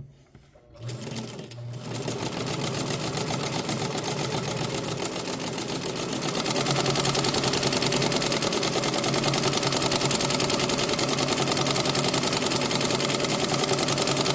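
Hamilton sewing machine starting up and running, stitching a patterned zigzag (bridge-shaped) stitch, with a fast, even mechanical chatter. It picks up speed in the first couple of seconds and gets louder again about six seconds in, then runs steadily at speed.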